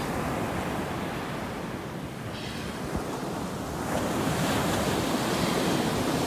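Surf breaking on a sandy beach: a steady wash of waves that gets louder about four seconds in.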